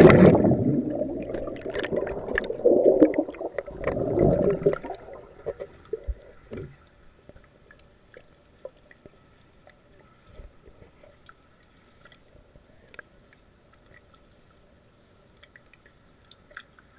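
Muffled churning and gurgling of water, loud at first and dying away about five seconds in, followed by faint scattered clicks and taps.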